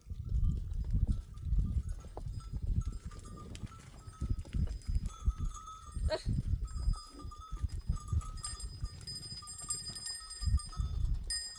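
Flock of goats and sheep with bells clinking faintly and steadily, the ringing thickening past the middle, and a single short rising call about six seconds in. Gusts of wind rumble on the microphone throughout.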